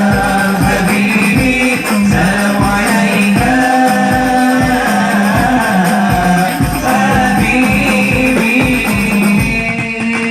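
Hadroh ensemble performing sholawat: voices singing a melodic devotional song to a steady beat of hand-struck frame drums (rebana).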